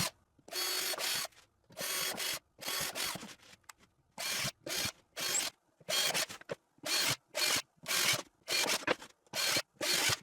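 A drill boring guide holes through plywood in a quick run of short bursts, each under a second, with brief pauses between them.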